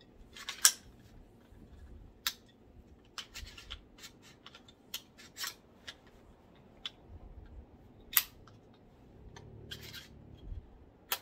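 Sharp metallic clicks and clacks, spread irregularly, from a Fostech Bulldog 9mm pistol as it is handled and cleared: the action is worked and checked empty.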